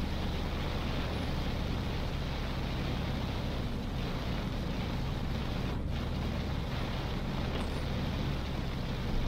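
Heavy rain hissing steadily, with the low, even rumble of a car driving on a wet road: engine and tyre noise.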